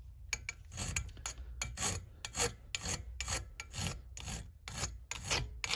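Slim round hand file rasping across the edge of a small metal piece clamped in a vise, in quick even strokes about four a second, rounding it into a curved profile.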